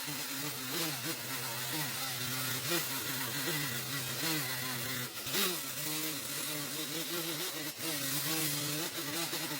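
Petrol chainsaw running at speed while cutting wood, its pitch wavering up and down as the load changes, with a brief dip about five seconds in.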